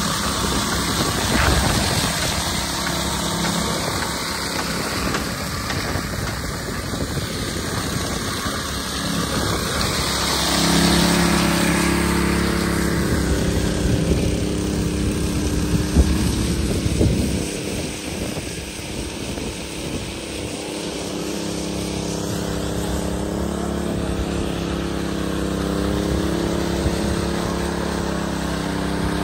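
Small petrol engine of a walk-behind concrete power trowel running steadily on the slab. A rushing hiss dominates the first ten or so seconds, then a steady engine drone takes over.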